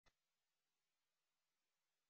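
Near silence, with one faint click at the very start.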